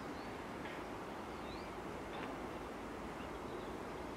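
Steady outdoor background noise with a few faint bird chirps, short notes that sweep down and up, about a second apart.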